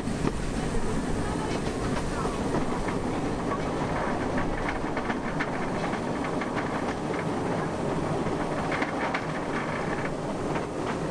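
Liliputbahn miniature park railway train running along the track, heard from an open passenger car: a steady rumble of wheels on rail with scattered clicks.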